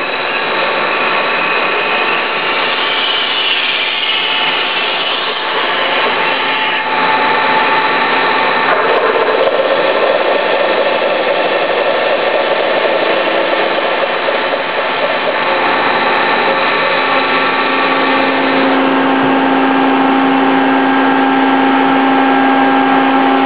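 Machine tool running steadily under load, a dense mechanical noise with several whining tones that change pitch partway through; a lower steady hum comes in about two-thirds of the way along.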